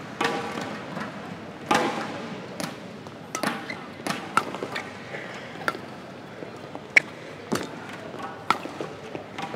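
Badminton rally: rackets striking a shuttlecock in sharp cracks, about one a second back and forth, over the steady murmur of an indoor hall.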